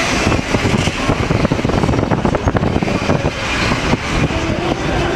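Vario LF low-floor tram under way, heard from inside: a steady running rumble with many small clicks and rattles from the wheels and body.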